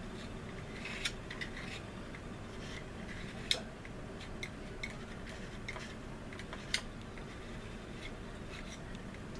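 Scattered sharp clicks and taps of small tools and plastic model-kit parts being handled, the loudest three about a second, three and a half seconds and near seven seconds in, over a steady low hum.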